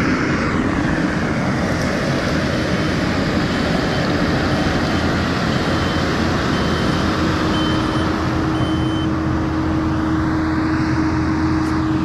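Kubota SVL95 compact track loader running steadily with its diesel engine at working revs. Its reverse alarm beeps about once a second for several seconds in the middle.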